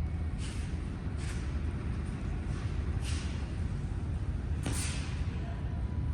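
Aikido throws and breakfalls on the mat: four short, sharp swishes and slaps, the loudest about two-thirds of the way through, over a steady low rumble.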